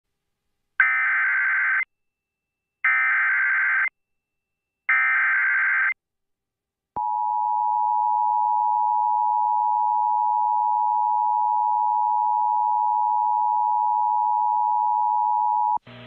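Emergency Alert System SAME header: three one-second bursts of digital data tones, a second apart, followed by a steady attention tone of about nine seconds that cuts off sharply near the end. Together they announce a severe thunderstorm warning.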